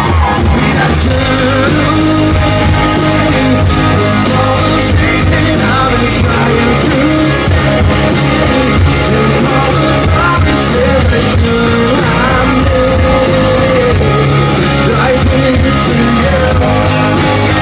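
Live rock band playing loud and steady, with electric guitars, bass and drums under a male lead vocal, recorded from the audience.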